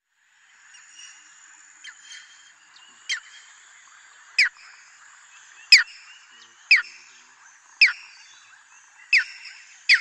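Striated heron giving a series of short, sharp calls, each falling quickly in pitch, about one a second and growing louder as the series goes on, over a faint steady background hiss.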